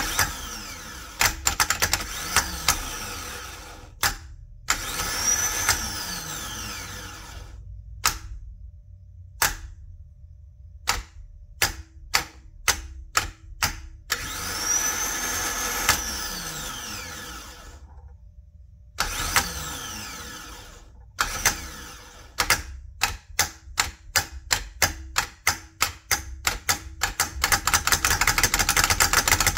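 Honda CR-V starter motor bench-tested on jumper cables: it spins up and coasts down in about four longer runs, a whine that rises and then falls. Between the runs come many short bursts of under a second, coming faster, several a second, near the end.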